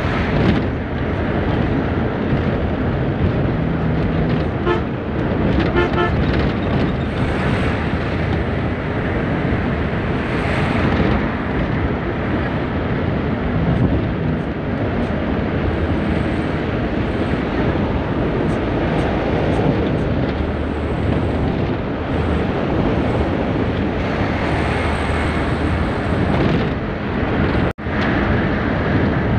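Intercity bus cruising at highway speed, heard from inside the driver's cab: a steady mix of engine rumble and tyre and road noise. The sound cuts out for an instant near the end.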